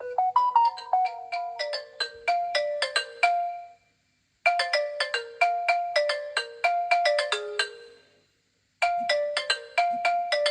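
Phone ringtone: a melody of quick chiming notes, repeated in phrases of about four seconds with short pauses between them.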